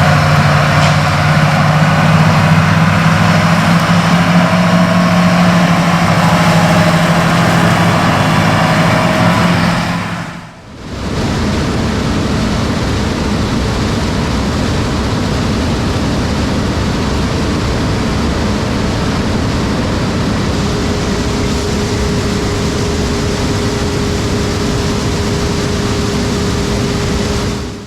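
Combine harvester running while harvesting corn: a steady, deep engine hum for about ten seconds, then, after a brief dip, a noisier steady machinery sound, with a faint steady whine joining in past twenty seconds.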